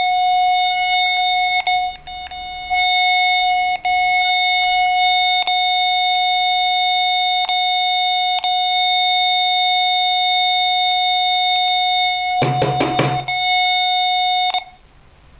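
Electronic beeper of a battery-powered device sounding one long continuous high tone with a few short dropouts, then cutting off about a second before the end; the device is malfunctioning, beeping while switched off and showing a flat-battery warning. A brief noise breaks in about twelve seconds in.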